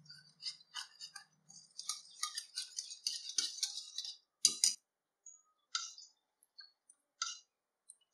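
Wire whisk beating a thin flour-and-water batter in a plastic bowl: quick ticking and clicking of the tines, densest through the middle, with two louder knocks about four and a half seconds in, then only a few scattered clicks.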